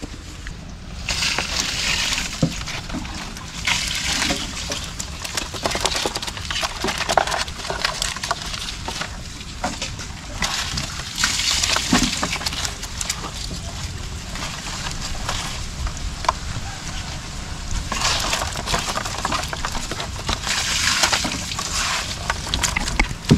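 Water splashing and sloshing in irregular bursts of a second or two, several times over, as of someone working in shallow water.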